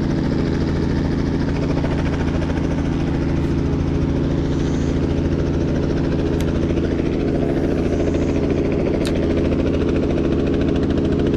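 Helicopter that has landed in the river, its engine and rotor running at a steady idle: a loud, unchanging low hum with a fast even pulse.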